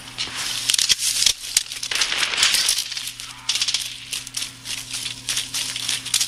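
First-person shooter game audio played through QCY T13 earbuds: a dense, irregular clatter of running footsteps and gear rattle over a steady low hum.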